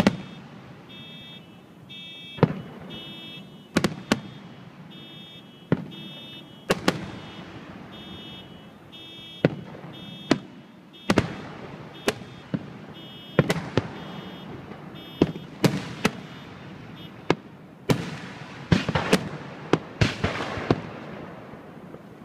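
Aerial fireworks shells exploding close by: a long, irregular series of loud, sharp bangs, each ringing on briefly, coming thick and fast near the end. A faint high pulsing tone sounds under the bangs for the first several seconds.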